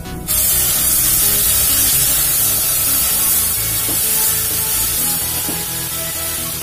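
Milk poured into a hot kadhai of ghee-roasted moong dal, hissing and sizzling loudly as it hits the pan, starting suddenly a moment in.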